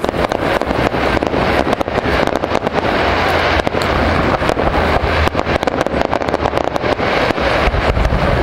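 Fireworks going off in quick succession: a dense, continuous run of cracks and pops, many a second, over a steady low rumble.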